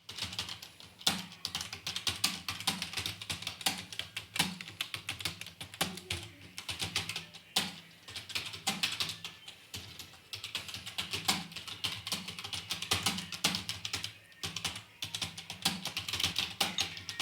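Fast typing on a computer keyboard: rapid, irregular runs of key clicks with short pauses, over background music.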